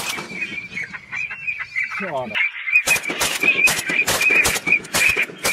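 Waterfowl honking and calling rapidly, a dense run of short harsh calls over a steady warbling chatter, with one gliding call about two seconds in.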